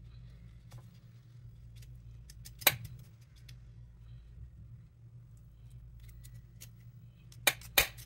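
Kitchen knife scraping meat off a chicken wing bone, giving many faint sharp clicks as the blade catches on the bone, with one louder click about three seconds in and two more in quick succession near the end.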